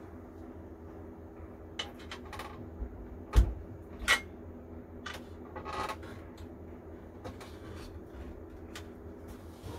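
Handling knocks and clatters of a wooden shelf board on metal shelf brackets as it is fitted by hand: a few sharp knocks between about two and six seconds in, the loudest about three and a half seconds in, over a steady low hum.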